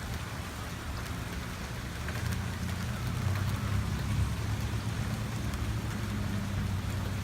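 Steady rain falling during a thunderstorm, with a low steady drone underneath that swells in the middle.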